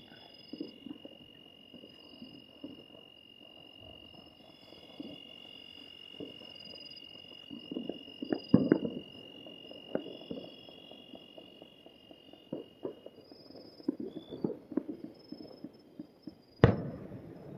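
Distant firecrackers and fireworks popping in scattered clusters, with one sharp loud bang near the end. A steady high insect trill runs underneath and fades out about two-thirds of the way through.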